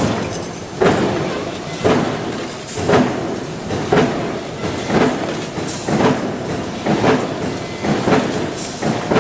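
Factory production machinery making steel concealed-hinge parts: a regular thump about once a second over a steady mechanical noise.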